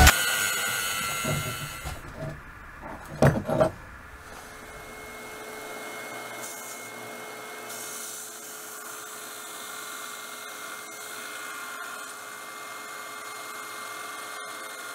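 Central Machinery benchtop belt sander running steadily while a high-carbon-steel knife blank is held against its belt to grind the profile. A couple of loud knocks come about three seconds in.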